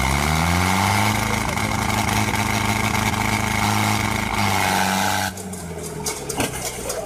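Tractor diesel engines revving up to full throttle and held there under heavy load as the tractors pull against each other. About five seconds in the sound drops suddenly to a quieter engine note.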